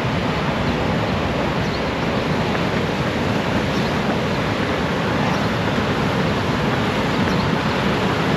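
Steady rushing of high floodwater pouring through a spillway on the Trinity River, swollen by a dam release.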